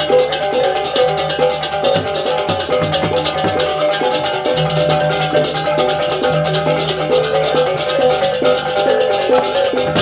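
Background music: pitched metallic percussion playing repeated notes over a fast, steady beat.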